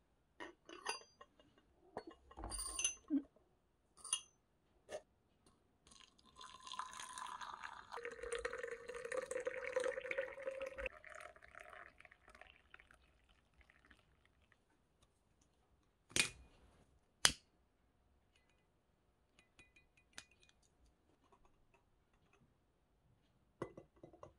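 Clear glass teapot and lid clinking as they are handled, then water poured onto loose green tea leaves in the teapot's glass infuser for about six seconds. Two sharp glass clinks follow.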